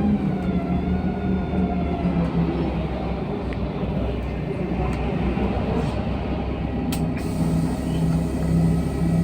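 Interior of a LiAZ-5292 low-floor city bus under way: a steady engine and drivetrain drone over road rumble. The engine tone falls over the first couple of seconds as the bus slows, and a couple of sharp clicks come about seven seconds in before the drone settles again.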